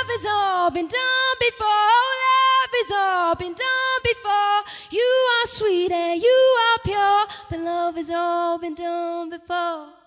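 A woman singing solo with no accompaniment, long held notes with slides and runs between them. A last guitar chord dies away in the first half second. The voice stops just at the end.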